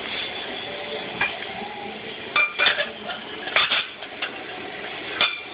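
Hard clinks and knocks, about eight separate ones, mostly in the second half, from the pieces of a broken flip phone being shaken and handled in a blender jar. The blender motor is not running.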